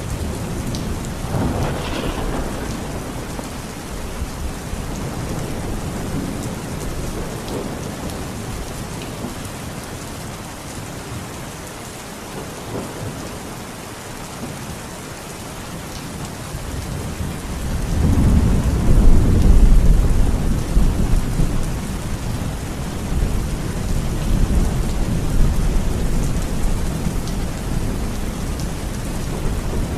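Steady rain falling, with a roll of thunder rumbling low that swells a little past halfway, is loudest for a few seconds, then fades back into the rain; a lighter rumble comes near the start.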